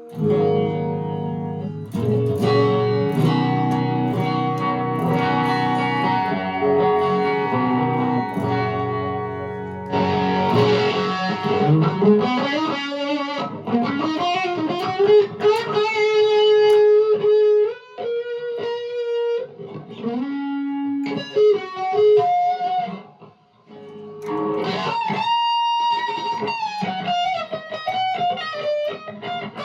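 Electric guitar played through a Behringer OD300 overdrive pedal into a Vox MV50AC amp. Strummed chords ring out for about the first ten seconds. After that come single-note lead lines with string bends and long held notes with vibrato.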